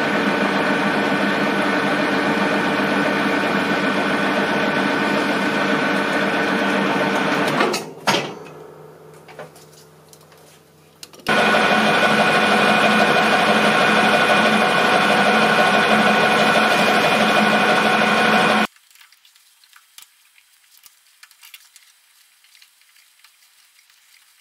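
Metal lathe running with a steady whine of several tones while a carbide-insert tool turns down the spinning spindle blank. It stops about eight seconds in, starts again about three seconds later, and cuts off abruptly near nineteen seconds, leaving only faint small clicks and taps.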